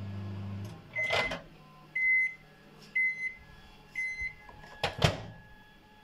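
Sharp microwave oven humming as it heats, then falling silent under a second in as its countdown ends, followed by four high beeps about a second apart signalling that the cycle is done. Near the end a sharp click, the door being opened.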